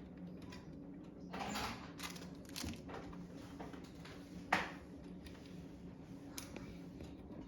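Scattered clicks and knocks of plastic toys being handled, the sharpest one about four and a half seconds in, over a steady low hum.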